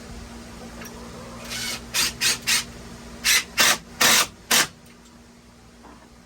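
About eight short rasping strokes of something scraping over wood, coming in quick uneven groups about a second and a half in and stopping near the end.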